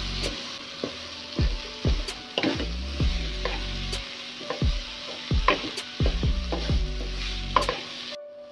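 Mashed tempe and ground chilli sizzling in oil in a nonstick wok while being stirred with a spatula, which knocks and scrapes against the pan every half second to a second. The sound cuts out abruptly just before the end.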